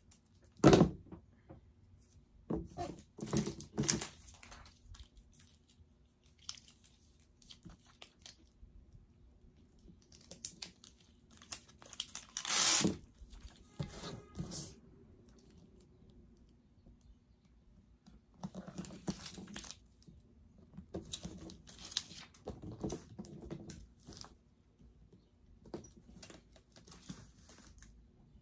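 Sticky-backed rhinestone trim being peeled and pressed onto a glitter cardstock frame: scattered taps and rustles, with one louder tearing sound about halfway through.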